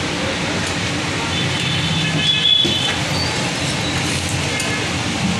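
Steady low din of a roadside food stall, traffic-like, with a single short knock about two and a half seconds in and faint high-pitched tones just before it.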